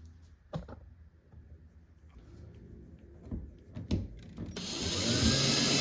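A few light knocks of parts being handled, then about two seconds of a power drill running at speed, drilling into the bed's pressed-wood board.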